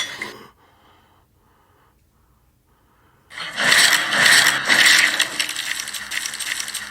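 Chainsaw running loudly with a dense buzzing rattle. It starts about three seconds in after a near-quiet stretch and cuts off suddenly at the end.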